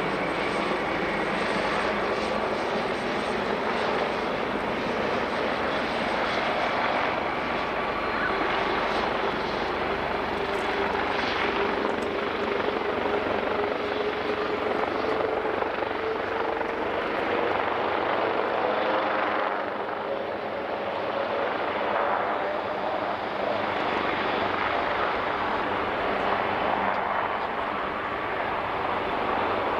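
Airbus A380's four Rolls-Royce Trent 900 turbofans spooling up for takeoff: a loud, steady jet rush with an engine tone rising slowly in pitch as thrust builds and the airliner starts its takeoff roll.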